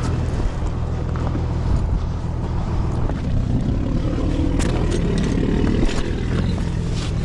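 A motor vehicle's engine running steadily, a continuous low drone with a few light clicks over it.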